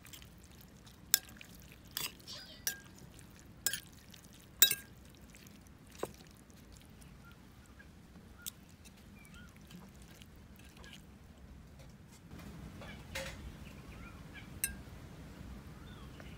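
Metal spoon and fork clinking against a plate while tossing noodles, a string of sharp clinks, most of them in the first five seconds and a few spaced out later.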